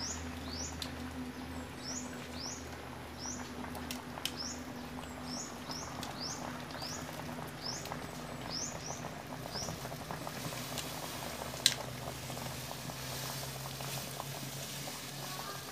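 Coconut milk simmering in a pan over a wood fire, a soft steady bubbling hiss. Over it, a run of high, quick downward chirps repeats about twice a second for the first ten seconds or so, and a single sharp click comes near the end.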